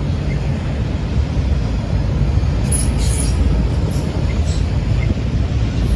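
Freight train rolling past: a steady low rumble of cars on the rails, with faint high wheel squeals about three seconds in.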